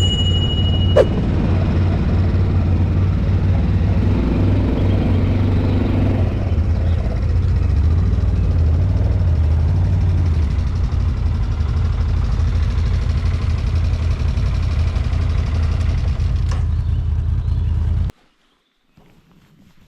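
ATV (quad bike) engine running steadily while riding, a deep low drone with little change in revs. It cuts off abruptly near the end, leaving near silence with a few faint clicks.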